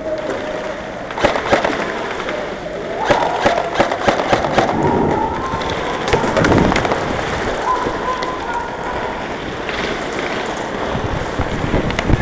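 Airsoft guns firing scattered single shots and short bursts of sharp cracks.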